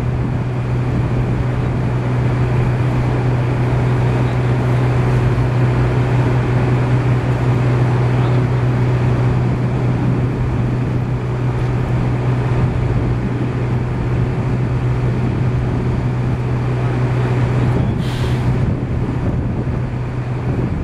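An engine running steadily at constant speed, a loud, even drone that does not change. A short hiss cuts in near the end.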